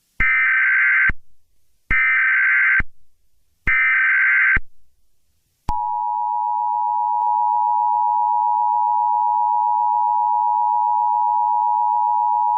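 Emergency Alert System tones: three short bursts of the SAME digital header, each a buzzy data squawk about a second long. About six seconds in, the steady two-tone EAS attention signal begins and holds, which marks an alert message about to be read.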